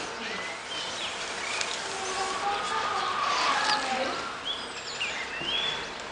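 Birds chirping in short rising and falling calls, with a longer wavering call about two to four seconds in.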